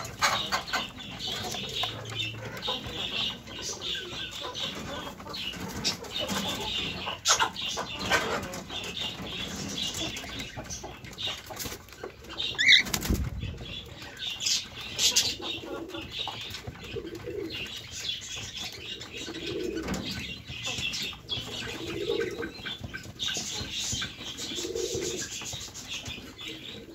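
A Mukhi pigeon shifting on its straw nest: wing flutters and rustling, crackling twigs, with one sharper flurry about halfway through. In the second half, low coos come every two or three seconds.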